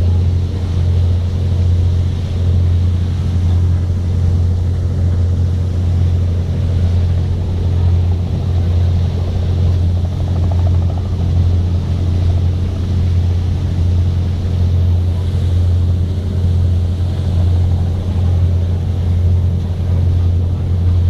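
Boat engine running steadily: a constant low drone that does not change.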